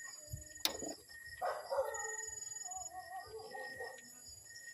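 An animal call in the background, lasting about two and a half seconds, starting about a second and a half in and wavering in pitch. A single sharp tap comes just before it.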